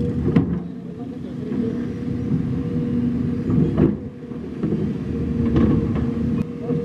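Heavy diesel engine of construction equipment running steadily under load, with a few sharp metallic knocks.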